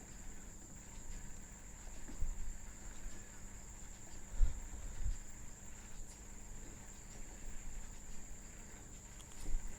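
Faint room tone: a steady high-pitched whine with a low hum underneath and a few soft low thumps.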